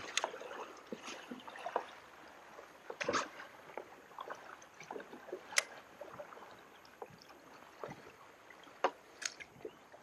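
Faint water lapping and trickling against a plastic sit-on-top kayak's hull in fast river current, with scattered light knocks and clicks from gear on the boat, the sharpest about three, five and a half, and nine seconds in.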